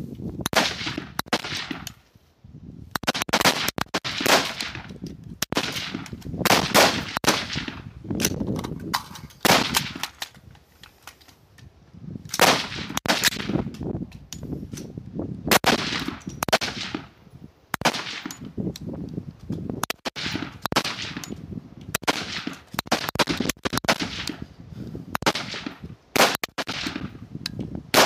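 Rapid-fire string on a high-power rifle firing line: the shooter's 16-inch M4-style .223 carbine and the AR-type service rifles beside it fire shot after shot, often two or three close together, with brief lulls about two seconds in and around ten seconds in.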